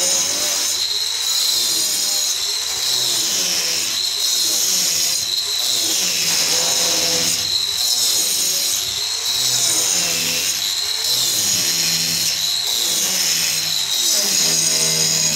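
Angle grinder cutting a groove into a concrete block wall: a continuous loud grinding whine that dips and recovers about every second and a half as the disc is worked along the cut.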